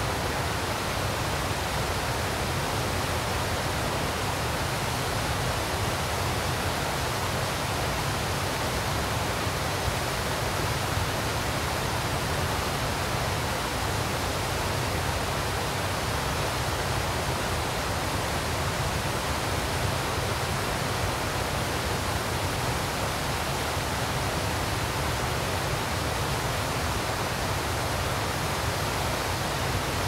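Waterfall pouring over a rock ledge into a rocky stream, with water rushing between boulders below: a steady, unchanging rush of falling water.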